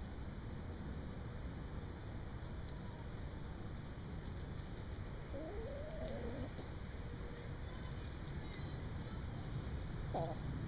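Backyard hens calling softly, with one drawn-out call that bends up and down in pitch about halfway through and a shorter call near the end, over steady low background noise.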